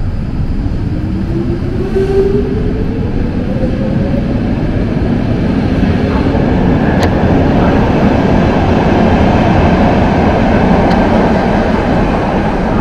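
Stockholm metro train accelerating, its motors giving a whine that rises in pitch over the first few seconds, then steady running and track noise that swells as it picks up speed.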